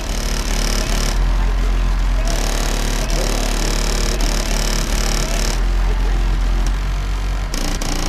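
Car audio subwoofer system playing very loud, steady deep bass. The bass changes about seven and a half seconds in.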